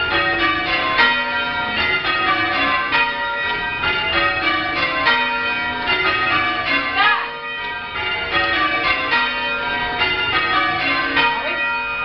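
A ring of six church bells rung full-circle from ropes in the ringing chamber below, the bells struck one after another in a steady, even rhythm, each note ringing on into the next.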